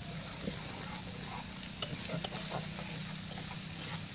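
Sliced potatoes and spice paste frying in oil in a kadai, sizzling steadily while a metal spatula stirs them and scrapes the pan. Two sharp clicks of the spatula against the pan come about two seconds in.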